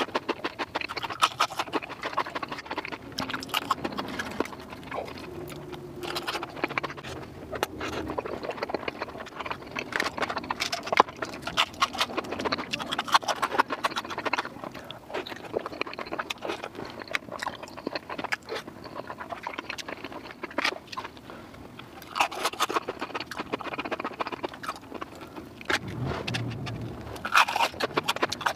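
Close-miked ASMR eating sounds played at double speed: chewing and smacking of fried food such as onion rings, a chicken tender and cheese-covered fries, heard as a rapid, continuous run of small wet clicks and crackles.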